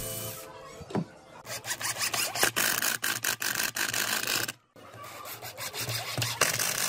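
Cordless drill-driver driving wood screws into pallet wood, the screw threads biting into the wood with a dense, rapid crackle. It breaks off briefly about halfway through, then picks up again.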